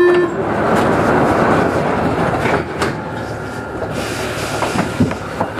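Paris Métro MP05 rubber-tyred automatic train at the platform, about to pull away: a steady rush of train noise, louder for the first couple of seconds, with a faint steady motor whine coming in about three seconds in.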